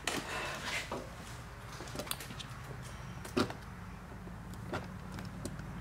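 Scattered light knocks and clicks from handling, over a faint steady low hum. The strongest knock comes about three and a half seconds in.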